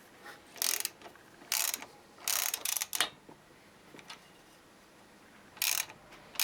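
Ratchet wrench clicking in short strokes, about five brief bursts with a longer pause midway, as nuts are run down while the cylinder head is fitted to a 1972 VW Beetle engine.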